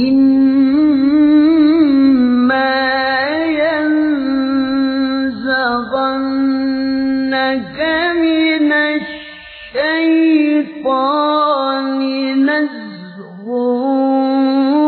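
A male qari reciting the Quran in melodic tilawah style: long held notes with ornamented turns, in one unaccompanied voice. The voice breaks off briefly twice in the second half.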